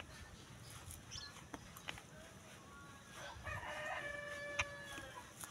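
A rooster crowing once in the background: one long call held for about a second and a half, starting a little past the middle. A few faint clicks of chewing come before it.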